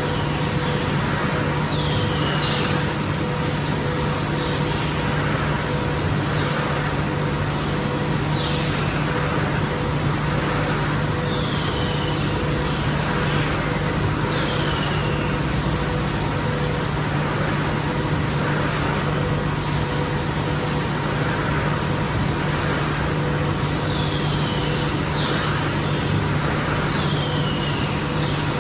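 MgO board sanding machine running steadily: a continuous mechanical noise over a constant low hum, with short, high, falling squeaks every couple of seconds.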